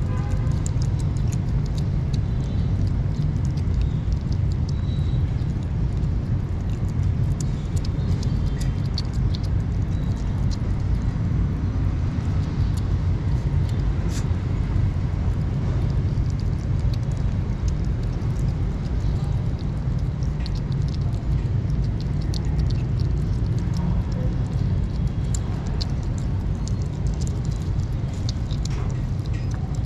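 Several kittens chewing and smacking mouthfuls of wet cat food from a plastic tub, many small quick clicks over a steady low rumble.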